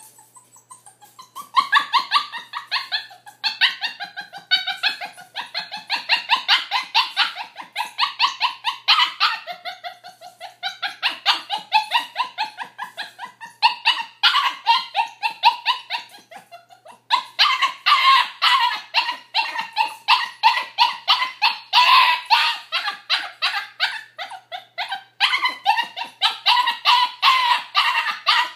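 Puppy barking and whining in rapid runs of short, high yips, about four a second, a monkey-like chatter, broken by brief pauses.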